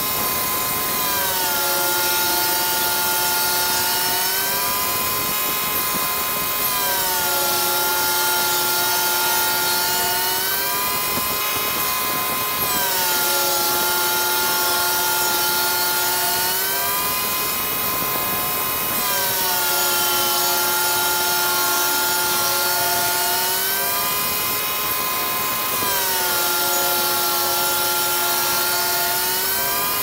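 Band sawmill running with a steady pitched hum. The pitch sags as the blade takes each cut through the log and climbs back when the cut ends, five times about six seconds apart. Short bursts of hiss come between some of the cuts.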